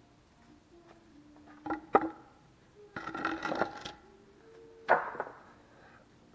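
Wooden lumber boards knocking and clattering on concrete as they are lifted and set down: two sharp knocks about two seconds in, a rattling clatter about three seconds in, and one more sharp knock near five seconds.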